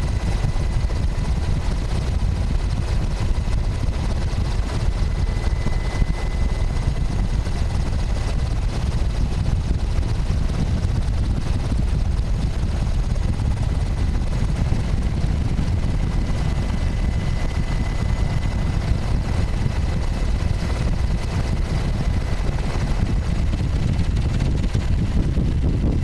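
Helicopter rotor and engine running steadily, heard from on board: a deep, even rumble with a faint steady whine above it.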